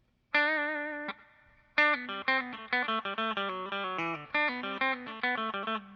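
Electric guitar with a Seymour Duncan Antiquity bridge pickup, played clean through a Mesa/Boogie Express 5:50 tube amp. A single ringing note comes in just after the start and is cut off after about a second, then, about two seconds in, a quick run of single notes.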